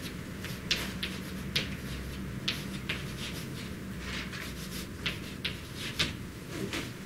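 Chalk on a blackboard being written with: irregular short taps and scrapes, several to a second at times, over a faint steady low hum.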